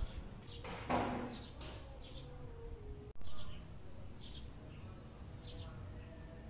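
Birds chirping: a handful of short, high, falling calls a second or two apart over a steady low background hum. A loud burst of noise comes about a second in, and another follows a brief dropout about three seconds in.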